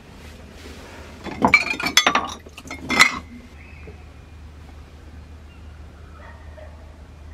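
Glassware clinking as a stemmed wine glass is handled: a quick run of sharp clinks about a second and a half in, then one last clink about three seconds in.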